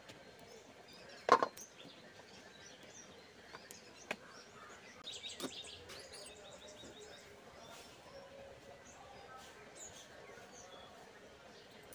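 Quiet outdoor background with small birds chirping, including a quick run of high chirps about five seconds in. A single sharp knock stands out about a second in, with a few fainter clicks later.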